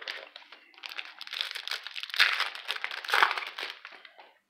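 Plastic wrapper of a 2000-01 Upper Deck MVP hockey card pack crinkling as it is torn open by hand, with two sharper snaps near the middle.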